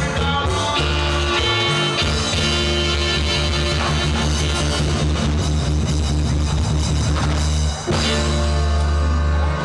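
Live band playing amplified music through a PA sound system, with long held bass notes under sustained chords and a short break about eight seconds in.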